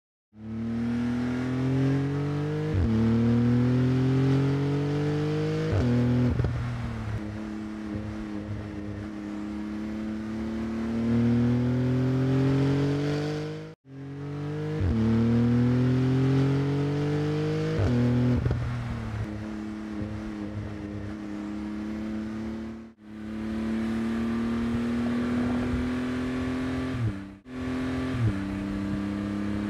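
Porsche 911 GT2 RS's 3.8-litre twin-turbo flat-six accelerating hard, its pitch climbing and then dropping sharply at quick upshifts of the seven-speed dual-clutch gearbox. The sound cuts off abruptly a few times between runs.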